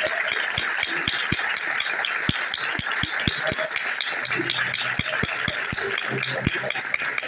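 A congregation clapping in time, about three claps a second, over a general noise of applause and cheering. A low steady instrument note comes in about four seconds in.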